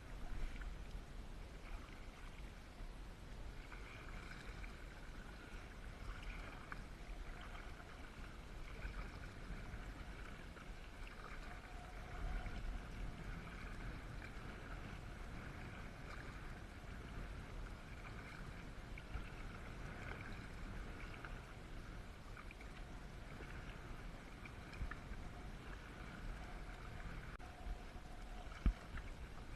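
Paddling an inflatable kayak: a paddle splashing and water dripping in recurring patches over a steady low rumble, with one sharp knock near the end.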